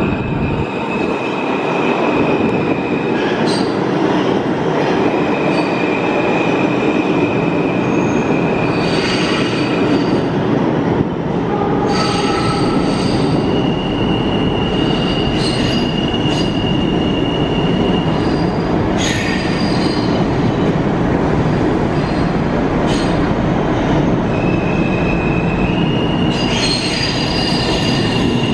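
Alstom R160A-1 subway train running through a station without stopping: a loud, steady rumble of wheels on track, with high, steady wheel squeals that come and go as it passes.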